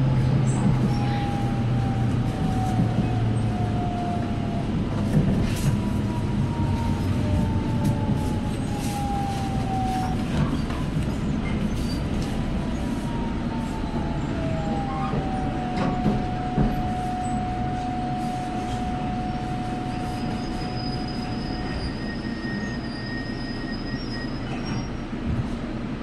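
Seoul Subway Line 1 electric train braking into a station, heard from inside the car: a steady low rumble of the running gear under a motor whine that falls in pitch several times, then holds level, with faint high squeals near the end as the train comes to a stop.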